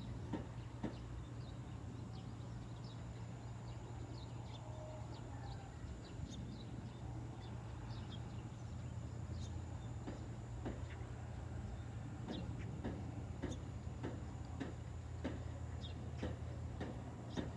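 Steady low wind rumble with short bird chirps scattered over it.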